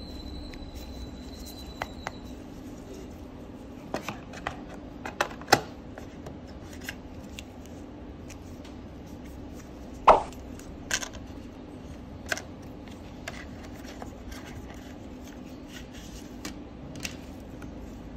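Gloved hands handling a phone's box and accessories: cardboard and plastic packaging rubbing, with scattered sharp clicks and taps, the loudest about ten seconds in, over a low steady hum.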